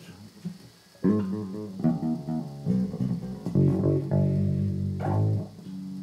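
Electric bass guitar played, a short run of plucked notes starting about a second in, each note ringing on before the next.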